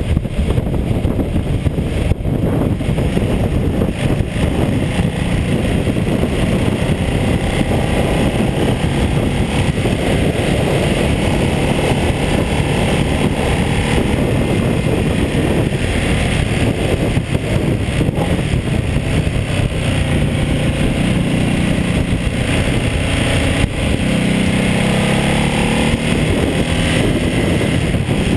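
Ducati Multistrada 1200S's L-twin engine running at road speed, picked up by a bike-mounted GoPro together with steady wind and road noise. The engine's tone comes through more clearly for a few seconds near the end.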